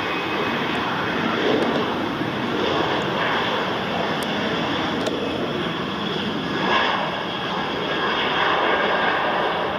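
An airliner's engines running, heard as a steady rushing noise with a faint high whine.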